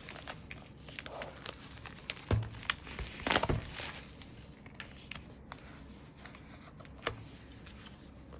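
Paper and plastic album packaging being handled: scattered crinkles, rustles and light taps, with a louder burst of crinkling a little past three seconds in.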